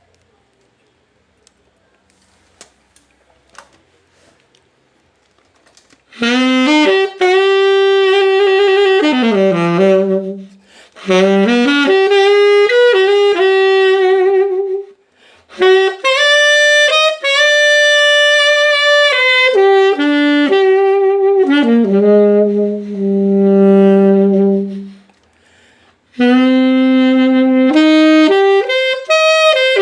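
A reed wind instrument, likely a saxophone, played with a homemade reed cut from PVC pipe: a slow melody of held notes with vibrato. It begins about six seconds in after a few faint clicks, with short pauses between phrases.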